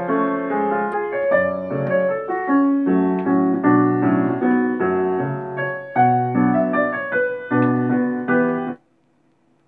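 Piano music playing from a pair of Sumvision PSYC Torre WX Wi-Fi tower speakers. The music cuts off suddenly about a second before the end, as the track is changed with the buttons on top of a speaker.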